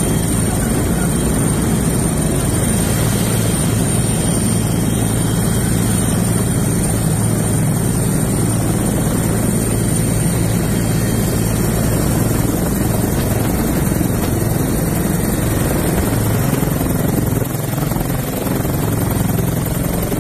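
Helicopter running on the ground with its rotor turning: a steady, loud drone with a thin high whine above it.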